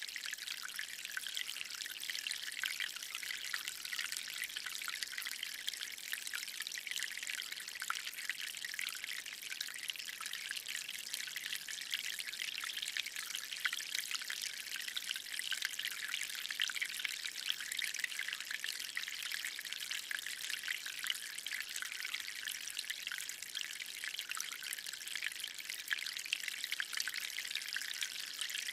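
Water flowing slowly out of a hose, a steady trickle and dribble.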